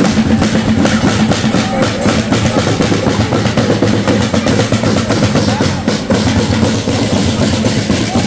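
Marching band playing on the move: snare and bass drums beating a dense rhythm under held brass notes from trumpets and trombones.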